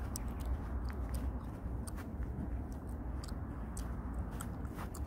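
Wind buffeting the microphone: a steady low rumble, with scattered sharp crackling clicks.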